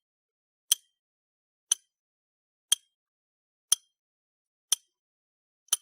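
Clock ticking once a second: six sharp, high clicks with silence between them.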